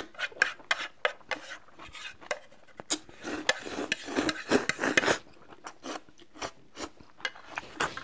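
Close-up eating sounds: noodles slurped straight off a plate, mixed with short clicks of chopsticks on plates. The slurping is thickest for about two seconds in the middle.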